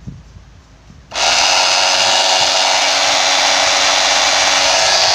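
Cordless drywall cutter switched on about a second in and running steadily with no load, loud and even. This is a test run showing that the used tool still works.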